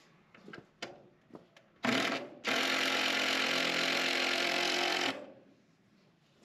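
Cordless drill driving a screw into the wooden framing of a coop wall: a short burst about two seconds in, then a steady run of about two and a half seconds that stops.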